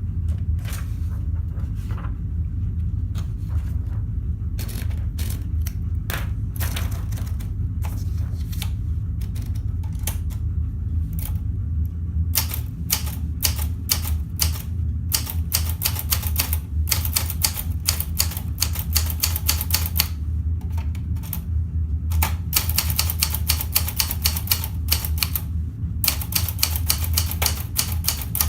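Olympia Traveller C manual portable typewriter being typed on: single keystrokes with gaps at first, then from about halfway through fast runs of typing broken by short pauses. A steady low hum lies under it.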